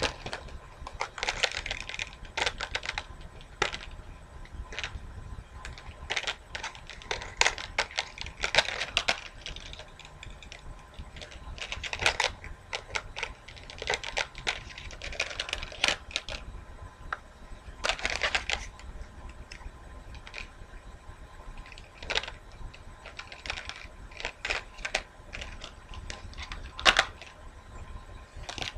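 Irregular clicks, taps and short rattling bursts of a set of rings being handled and separated from one another or from their packaging.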